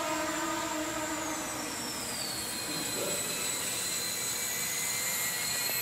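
RC model aircraft's pusher motor and propeller whining in flight; about a second in the pitch slides down and then holds lower as the throttle is eased back to slow the model down.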